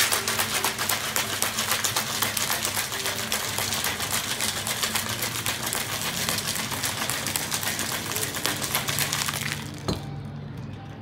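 Ice cubes rattling rapidly inside a stainless steel cobbler cocktail shaker being shaken hard. The rattle stops abruptly near the end, followed by a single sharp knock.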